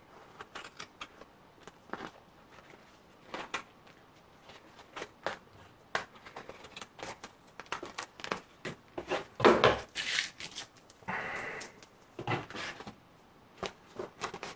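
Small scissors snipping around a crinkly tape-covered paper pattern, a run of short sharp cuts, with the pattern rustling and crinkling as it is handled; the loudest rustle comes about two-thirds in, followed by a longer crinkle.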